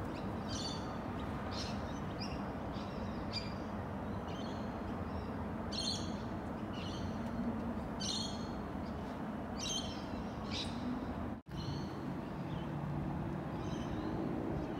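Birds chirping, short high calls repeated every half second to a second, over a steady background hiss.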